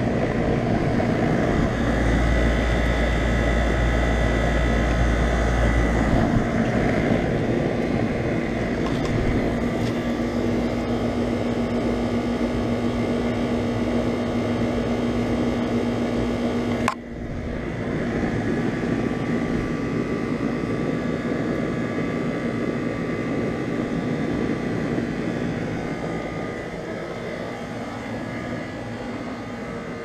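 2001 York 3.5-ton central air conditioner's outdoor condensing unit running: the compressor's steady hum with the top-mounted condenser fan's rush of air. A single sharp click comes about halfway through.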